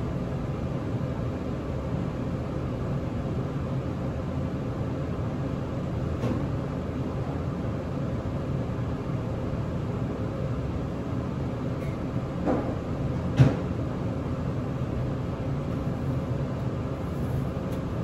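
Steady mechanical background hum with a faint steady tone in it. A few faint knocks come through it, once about a third of the way in and twice near two-thirds, the last the loudest.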